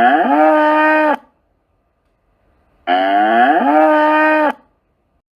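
Ox mooing: two identical long moos a couple of seconds apart, each rising in pitch at the start and then holding steady.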